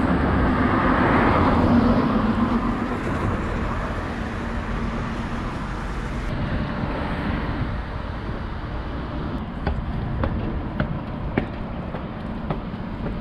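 Road traffic: a vehicle goes past close by at the start, loudest about a second or two in and then fading, leaving steady traffic noise. A few sharp clicks near the end.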